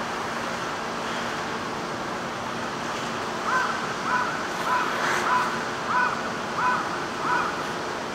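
A crow cawing about seven times in a quick, even series, over a steady rush of wind and sea.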